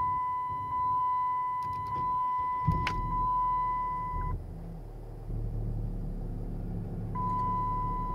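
The Chrysler 300C's OM642 3.0 V6 turbodiesel is started with the key: there is a sudden catch about a third of the way in, then a steady low idle rumble. A steady high beep sounds over it, stops about halfway through and comes back near the end.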